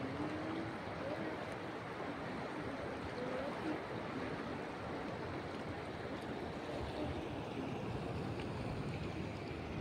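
The Ganges flowing swiftly past rocks at the river's edge: a steady rushing of water.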